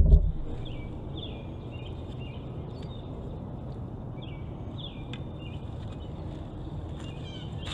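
Small birds chirping, short falling chirps in little clusters several times, over a steady low outdoor rumble. A heavy thud, the tail of the shovel blade striking the wet soil, opens it.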